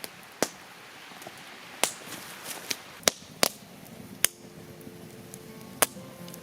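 Campfire crackling: about six sharp, irregular pops over a faint hiss. Soft, steady music notes come in near the end.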